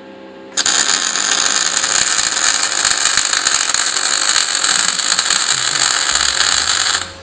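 MIG/MAG welding arc on 3 mm steel angle iron, shielded with an 85/15 argon–CO2 mix at 7.5 litres per minute: it strikes about half a second in, burns with a steady dense crackle for about six seconds, then cuts off. The gas flow is enough for good shielding in still air.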